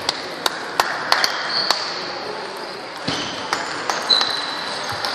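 Table tennis balls clicking irregularly off tables and bats, a dozen or so sharp ticks, some with a short high ring, echoing in a large sports hall.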